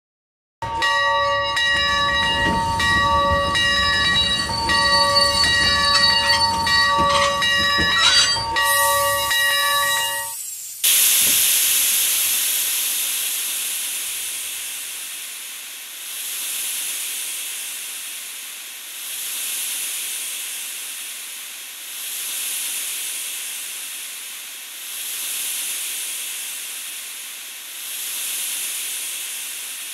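Steam locomotive sounds: for about ten seconds a chord of steady whistle-like tones sounds over a low rumble and cuts off sharply, then loud steam hissing takes over, swelling and fading about every three seconds.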